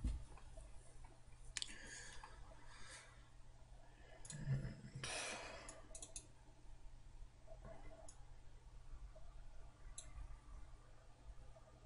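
Faint computer mouse clicks: a few single clicks spread out, and a quick double-click about six seconds in. Around the middle comes a short, louder rush of noise, like a breath.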